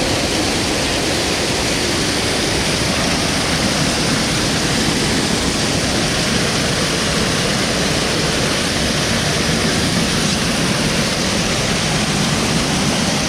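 Waterfall and fast creek water rushing in a steady, loud, unbroken wash.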